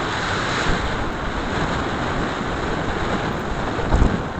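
Wind buffeting the microphone over road noise from a moving motorcycle, with a short low thump about four seconds in.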